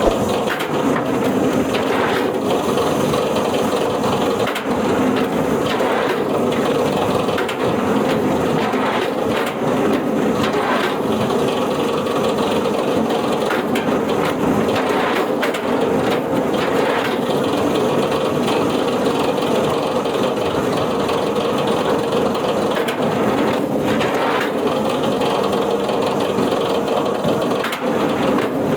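A wood-processing machine running steadily while it works wood, with repeated knocks and cracking of timber.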